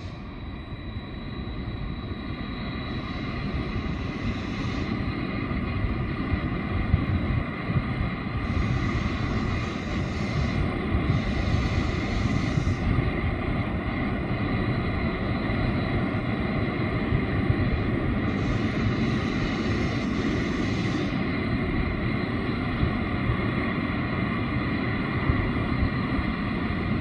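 Jet engines of an Embraer E190 airliner running on the runway: a steady turbofan whine over a low rumble that swells over the first few seconds and then holds.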